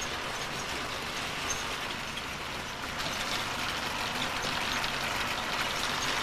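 Bakery dough-moulding machine running steadily, its rollers turning to roll cut pieces of dough into long baguette strands.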